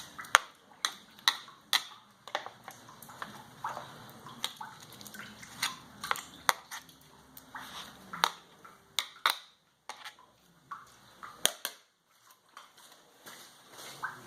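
Irregular sharp knocks and clatter with some wet squelching, from handling wet sawdust-and-paper briquette pulp. It goes quiet for a moment about ten seconds in.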